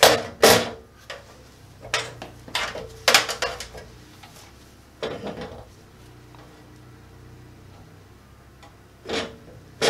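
Handling noise: a series of short scrapes and knocks as the surge protector's plastic housing, its wires and a weatherproof sealing ring are worked against a steel breaker panel, busiest in the first few seconds, quiet for a stretch, then two more knocks near the end.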